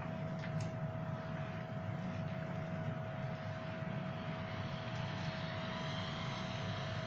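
A steady machine hum with a constant whining tone running through it, even and unchanging in level.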